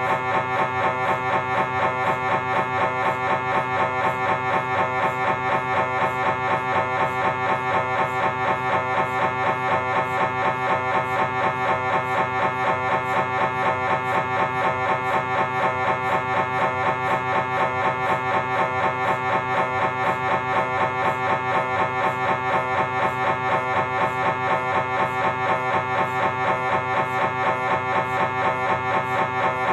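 Philips 1.5 T MRI scanner's gradient coils running a T2-weighted transverse DRIVE sequence of a lower-spine scan: a steady pitched buzz that pulses in a fast, even rhythm.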